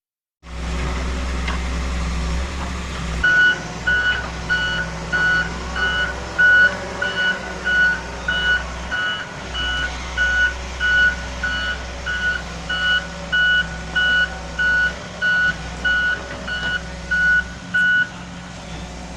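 Heavy construction vehicle's diesel engine running, with its backup alarm beeping steadily a little under twice a second, starting a few seconds in and stopping shortly before the end.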